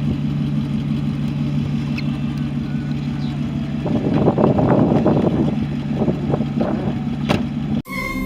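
A vehicle engine running steadily, with a low even hum and a louder, noisier stretch about halfway through. Near the end it cuts off abruptly and choir music begins.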